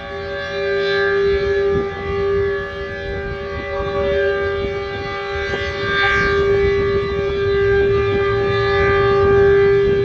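H.O.R. Super Sirex 15 dual-tone civil-defense air-raid siren sounding at full speed. Its two tones form a dissonant tritone chord, held steady, while the loudness swells and fades in slow waves as the siren turns.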